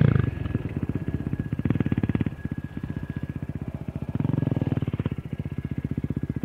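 Enduro dirt bike engine running at idle, an even rapid pulse, swelling briefly twice.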